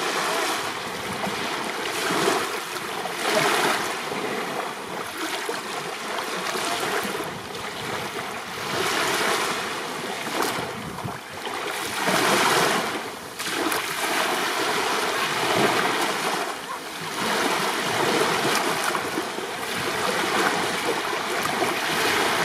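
Small waves breaking and washing up on a sandy shore at close range. A steady rush of surf swells every few seconds as each wave breaks and then washes back.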